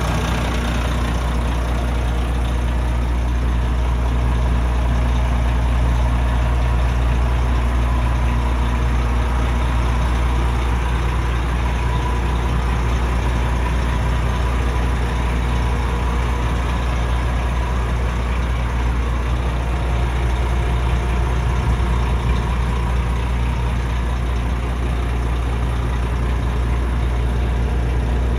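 Volvo FM410 truck's six-cylinder diesel engine idling steadily, a deep even hum with no revving.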